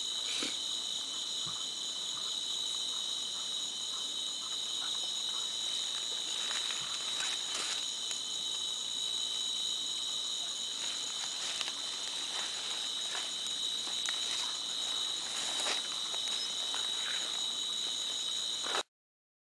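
Night insect chorus in a forest: a steady, high-pitched trill with scattered faint clicks, cutting off suddenly near the end.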